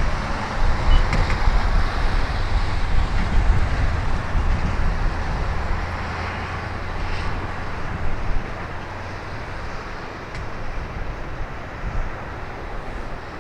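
Jet cargo aircraft's engines rumbling as it passes on a landing approach, the sound slowly fading over the last several seconds, with strong gusty wind buffeting the microphone.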